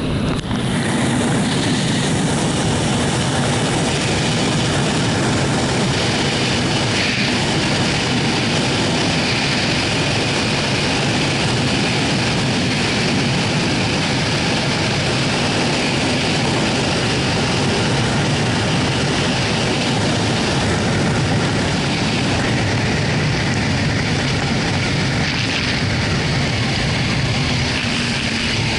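Steady wind rushing over the camera's microphone at freeway speed, with the 2004 Yamaha YZF-R6's inline-four engine running under it.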